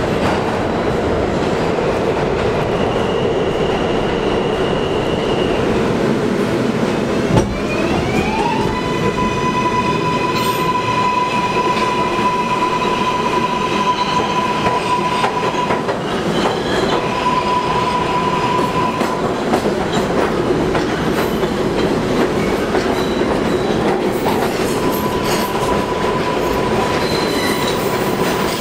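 New York City subway train running underground, with a steady rumble and clatter of wheels on rail. About seven seconds in there is a sharp knock, then a rising motor whine as the train picks up speed, levelling off into a steady high tone that drops out and returns.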